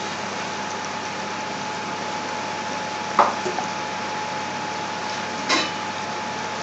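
Chopped onions frying in a pot on a gas hob: a steady sizzling hiss, with two short knocks, about three seconds in and again near the end.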